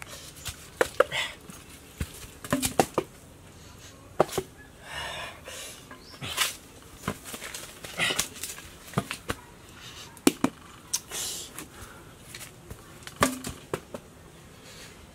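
Scattered sharp clicks and knocks with brief rustles: a barefoot person shuffling over dry leaf litter and handling jackfruit.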